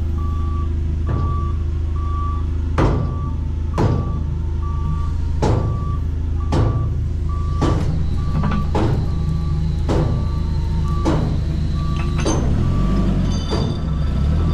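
Doosan forklift backing up: its reversing alarm beeps about twice a second over the steady running of its engine, with sharp knocks about once a second through the middle.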